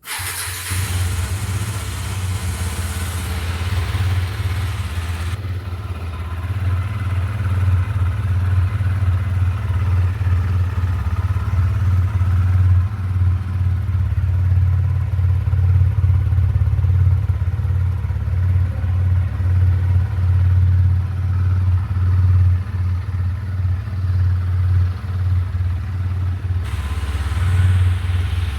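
Husqvarna Svartpilen 250's single-cylinder engine running at a steady speed, its exhaust note a low, even drone that grows a little louder after about six seconds.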